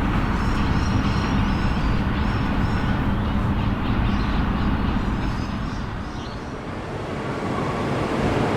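City transport ambience: a heavy, steady vehicle rumble with a wash of road or rail noise, easing off for a moment past the middle and building again near the end.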